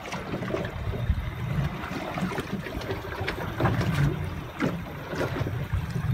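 Water sloshing against a small open panga boat's hull at sea, over a steady low rumble, with scattered light knocks.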